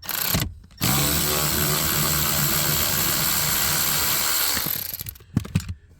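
Power driver with a Torx T30 bit unscrewing a bolt that holds the airbag cover: a brief burst, then the motor runs steadily for about four seconds before winding down, with a few sharp clicks near the end.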